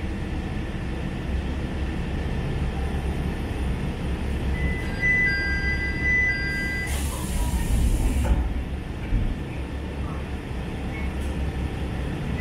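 Diesel railcar standing at a station with its engine idling in a steady low rumble. About five seconds in, high steady electronic tones sound for a couple of seconds, then a hiss of compressed air lasts about a second.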